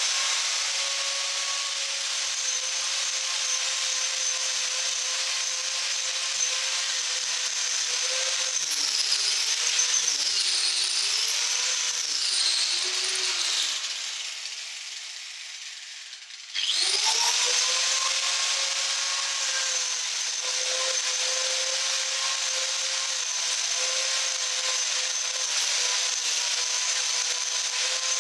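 Angle grinder fitted with a Lancelot 22-tooth saw-chain carving disc, running at speed and cutting into a log. Its steady whine wavers in pitch as the disc bites into the wood. About halfway through it is switched off and runs down, then is restarted and spins back up.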